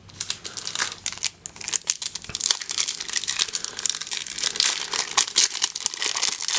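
Wrapper of a Magic: The Gathering booster pack crinkling and tearing as it is opened by hand, an irregular run of crackles.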